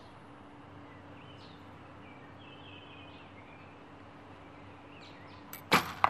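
Recurve bow shot: a sharp snap from the string's release near the end, followed by a short click. Before it, faint bird chirps over a faint steady hum.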